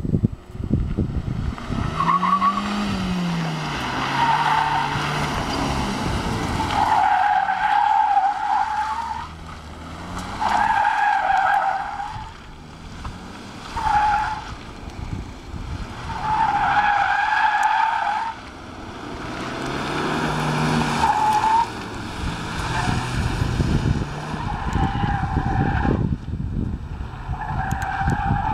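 Tyres of a VW Passat B6 1.8 TSI squealing over and over as it drifts and spins, about nine squeals of one to two seconds each. Beneath them its turbocharged four-cylinder engine revs up and down.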